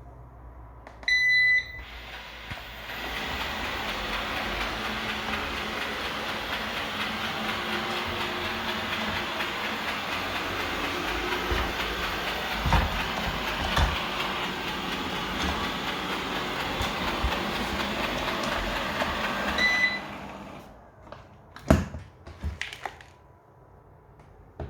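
Eufy RoboVac 15X Max robot vacuum gives a beep, spins up and runs steadily with a few sharp clicks in the running noise, the clicking fault being reported; it beeps again and shuts off near the end, followed by a few knocks.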